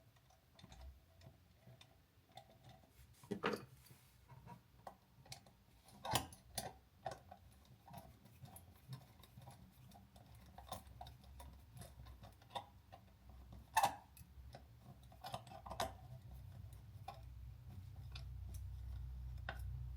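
Scattered light clicks and taps of a screwdriver and plastic parts as a wall outlet is screwed into its box and its cover plate fitted, with a faint low hum slowly getting louder near the end.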